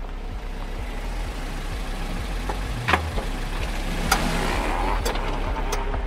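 A low, steady rumbling drone that slowly grows louder, with a dull thud about three seconds in and a few sharp clicks after it.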